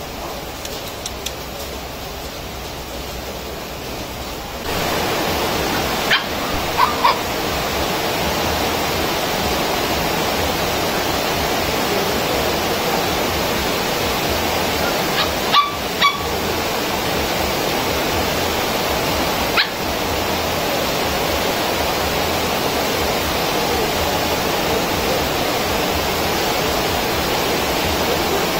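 Puppies play-fighting, giving a few short yips about six to seven seconds in and again near the middle, over a steady rushing noise that gets louder about five seconds in.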